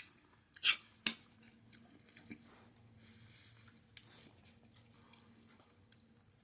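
A fork clicking and scraping against a dish or food container: a few sharp clicks in the first second and one more about four seconds in, with soft chewing between.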